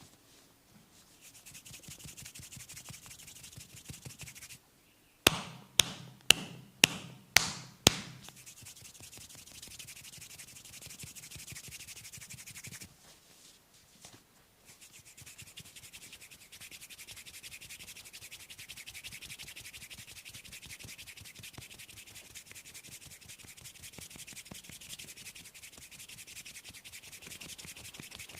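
Massage rubbing: a steady, hissy swish of strokes over the body, stopping briefly twice. A few seconds in, six sharp, loud smacks come about half a second apart.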